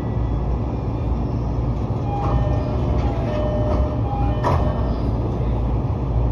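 Musashino Line electric train standing with a steady low hum. About two seconds in, the door chime sounds a repeated falling two-note signal, then the doors close with a thud.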